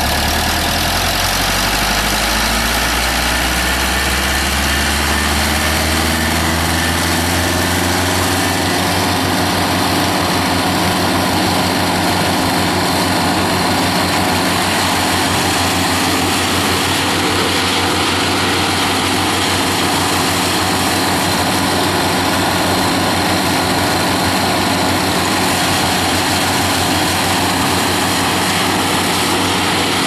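Morbark 290 disc chipper's four-cylinder Cummins 4B diesel engine running, rising in pitch over the first several seconds as it comes up to speed, then holding a steady pitch.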